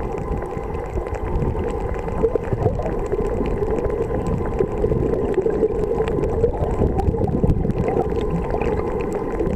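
Underwater sound picked up by a camera below the surface: a steady muffled rushing and hum, with many faint scattered clicks and crackles.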